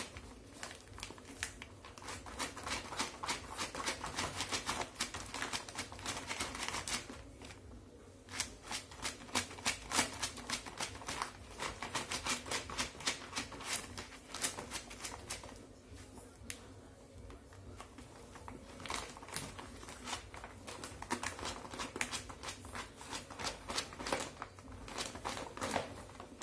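Shopping bag crinkling and rustling as a Shih Tzu puppy digs through it: rapid, irregular crackles in long bursts, easing off briefly twice.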